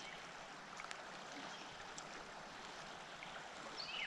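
Faint, steady rush of a shallow river flowing. Near the end a bird starts a run of quick, falling chirps, about three a second.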